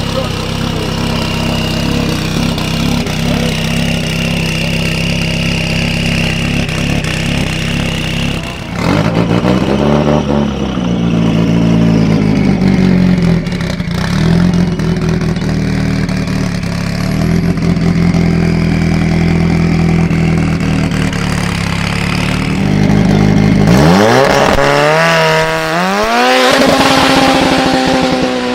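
Turbocharged Ford Sierra Cosworth engine running steadily, blipped a few times about a third of the way in, then revved hard near the end as the car accelerates, the pitch climbing steeply before shifting up to a higher steady note.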